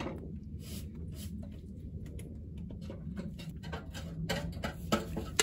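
A bolt being worked by hand into the grease-packed pilot bearing in the crankshaft end: faint scattered metal clicks and handling noises over a low steady hum, with a few sharper knocks near the end.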